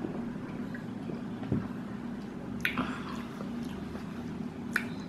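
A person drinking from a bottle and swallowing, with wet mouth sounds, a soft knock and a few small sharp clicks, over a steady low hum.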